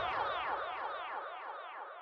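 Background music fading out: a quick repeating figure of falling notes that steadily dies away.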